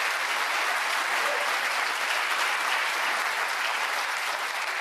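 A large audience clapping steadily, easing off slightly near the end.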